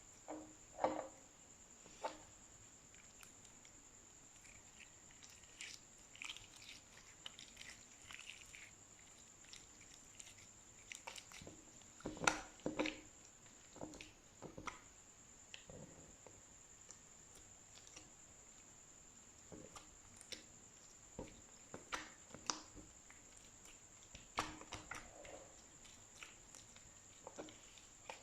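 Slime being squeezed and kneaded by hand, giving scattered soft squelches, small pops and clicks with quiet gaps between.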